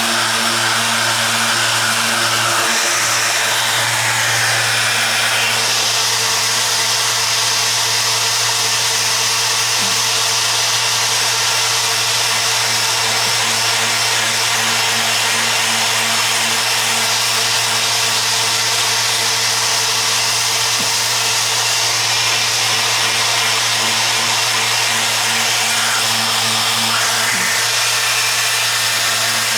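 Electric sander running continuously on an epoxy-coated steel hull: a steady motor hum with a gritty hiss from the abrasive. Its pitch shifts briefly a few seconds in and again near the end.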